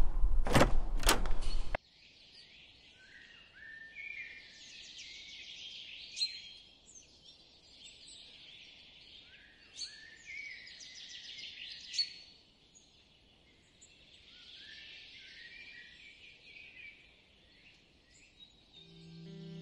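A couple of loud knocks over rumbling handling noise, cut off abruptly under two seconds in, then birds singing: varied chirps and down-slurred whistled notes. Guitar music comes in near the end.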